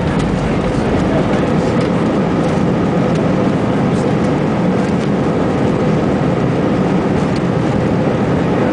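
Airbus A320 cabin noise during landing: a loud, steady roar of engines and airflow with a steady hum held through it, and a few faint ticks.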